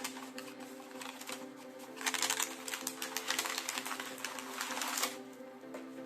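Snack packaging crackling and clicking rapidly as it is handled, loudest from about two seconds in to about five seconds, over quiet background music.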